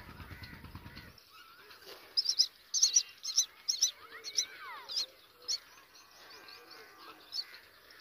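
Common myna nestlings begging: a run of loud, high, rapid chirps starting about two seconds in and lasting a few seconds, with one more chirp near the end.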